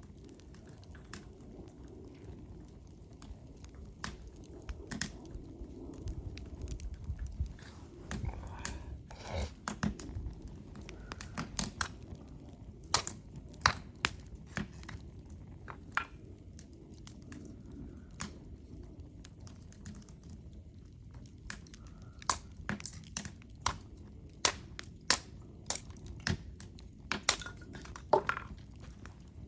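Wood fire crackling in a campfire stand: irregular sharp pops and snaps over a low steady hiss, the pops coming thicker in the second half.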